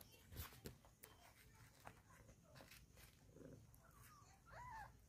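Mostly quiet, with a few soft rustling clicks about half a second in and a faint, short, high-pitched mew from a newborn kitten near the end.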